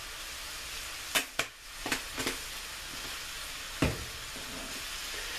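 Pork chops sizzling steadily in butter in a frying pan. Several sharp clicks a second or two in come from a spice container being shaken over the pan, and a single knock follows near the end.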